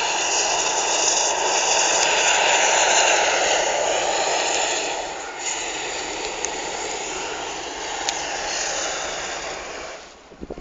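Hot-air balloon's propane burner firing in one long, steady blast that stops near the end.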